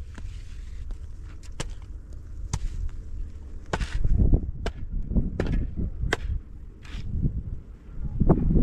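About ten sharp knocks and clicks, irregularly spaced, over a steady low rumble, with a few short scraping hisses.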